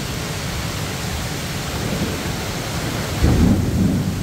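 Heavy rain pouring steadily, with a louder low rumble rising about three seconds in.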